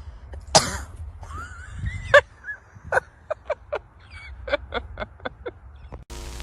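A bird giving a series of short, sharp calls: a loud call about half a second in, a few sliding calls, then a quick run of about ten clipped calls at roughly four a second.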